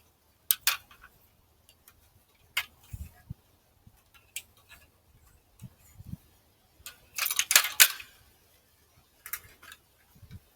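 Scattered sharp clicks and small knocks from handling a laser-level tripod stand and its strap, with a quick run of clicks about seven seconds in.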